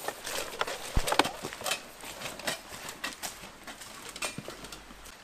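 Footsteps crunching through dry fallen leaves on a forest path, fading as the walker moves away, with a sharper knock about a second in.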